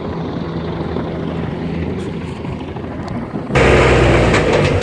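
Steady jet noise with a low hum, heard inside a Cessna Citation XLS cockpit. About three and a half seconds in it cuts abruptly to a louder, deeper rumble.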